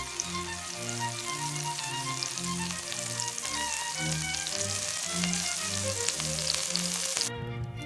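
Food frying in a pan: a steady sizzle with crackles, under background music with a melody and bass line. The sizzle cuts off abruptly about seven seconds in, leaving only the music.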